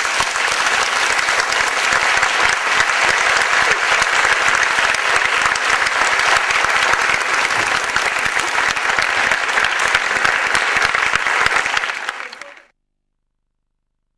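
A crowd applauding, a dense steady patter of many hands clapping that cuts off suddenly near the end.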